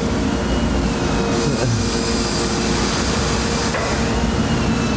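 Large industrial parts tumbler running, its trough of ceramic finishing media churning with a steady dense rattle over a low machine hum. It is deburring rifle parts.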